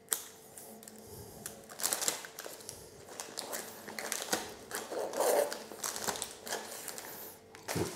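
Clear plastic gift bag crinkling and rustling under the hands, with scissors cutting the ribbon ends and drawing along them to curl them. The sound is a string of irregular rustles and small clicks, with a few louder crinkles.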